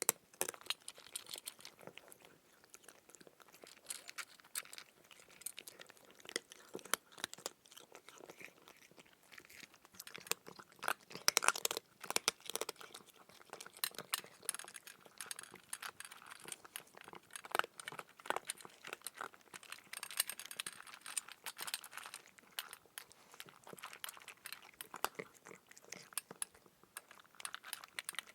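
Close-up crunching and chewing of crunchy food, a dense run of irregular crisp crackles and snaps, loudest in a cluster about eleven to twelve seconds in.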